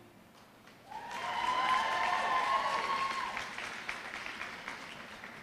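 Audience applauding and cheering: after a second of near quiet the clapping breaks out, a long high cheer rides over it for a couple of seconds, then the applause slowly dies down.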